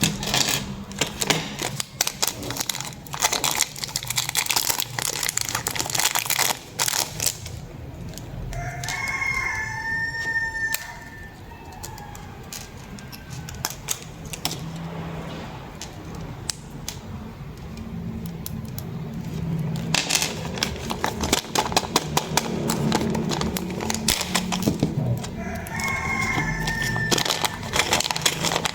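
Plastic packaging crinkling, with dense clicks and taps as items are handled and unwrapped. A rooster crows twice, once about a third of the way in and once near the end.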